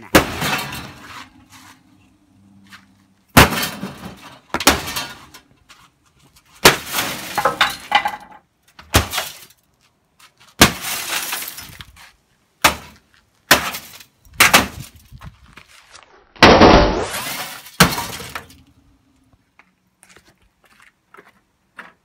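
Glass breaking: about a dozen loud shattering crashes, some in quick runs of two or three, as the glass in a microwave oven's door breaks. A faint low hum sits in some of the quiet gaps.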